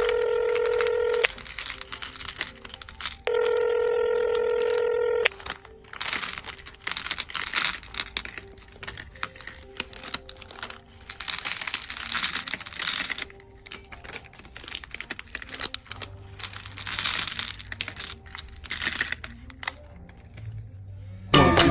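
Two steady telephone ringing-tone beeps, the second starting about two seconds after the first ends. After them comes a long stretch of irregular crinkling and rustling with many sharp clicks.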